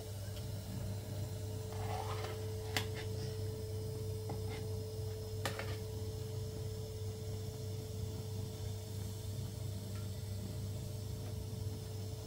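Steady low hum of a gas burner under a large pot. A few light metal clicks come from a slotted skimmer touching the pot rim and the plastic jug, the sharpest about three seconds and five and a half seconds in.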